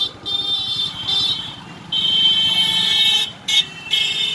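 High-pitched electric vehicle horn honked in repeated presses of varying length, the longest over a second, over a low rumble of street traffic.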